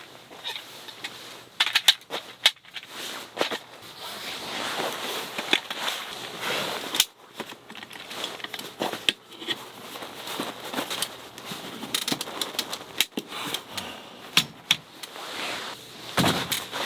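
Irregular clicks, knocks and rustling from objects being handled, with a louder knock near the end.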